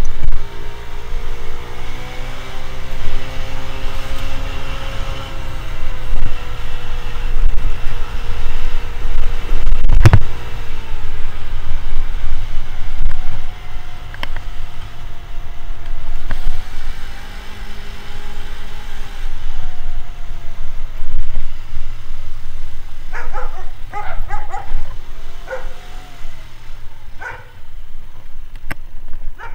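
Motor scooter being ridden, its engine note slowly rising and falling with speed under a heavy wind rumble on the microphone. A sharp knock comes about ten seconds in, and a few short sharp sounds come near the end.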